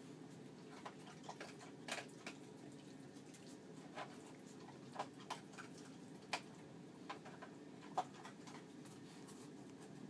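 Scattered light clicks and taps from Jack Russell–Chihuahua cross puppies scrabbling and playing in a plastic dog bed, with one sharper tap about eight seconds in, over a steady low hum.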